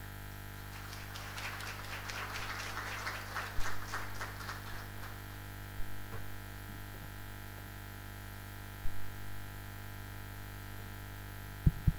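Scattered audience applause that fades out about five seconds in, over a steady electrical hum. A few dull knocks follow later.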